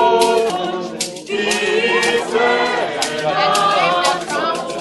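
A congregation singing a hymn together in several parts, long held notes over a steady percussive beat.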